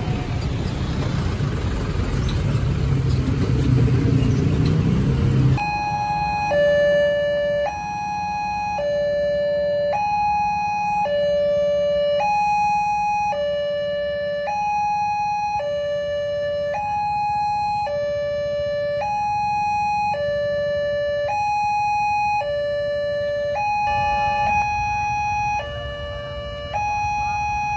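Cars and motorcycles pass over the crossing. About five seconds in, the railway level crossing's electronic warning siren starts suddenly. It is a loud two-tone alarm that swaps steadily back and forth between a higher and a lower pitch. It sounds with the barrier down, the warning that a train is approaching.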